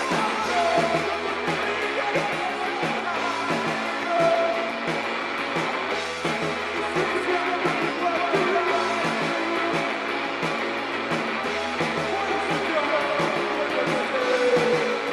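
Band music with guitar and drums playing steadily, with a melodic line that bends in pitch, perhaps a voice.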